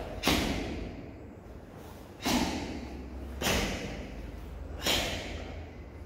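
A karateka's four sharp, forceful exhalations as kata techniques are struck, about a quarter second, two and a quarter, three and a half and five seconds in, each short hiss trailing off with a little echo.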